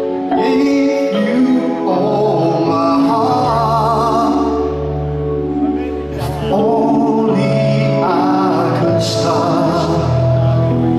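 Live rock band playing: a man sings long held notes with vibrato over sustained chords and bass notes.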